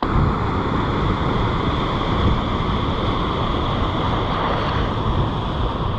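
Steady rushing of river water pouring over a waterfall and rapids, with wind buffeting the microphone.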